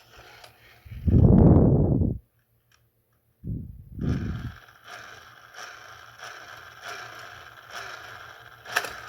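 Hot Wheels plastic toy track set being handled and played with: a loud low scraping rumble about a second in, two shorter rumbles a little later, then faint light ticking at roughly two a second.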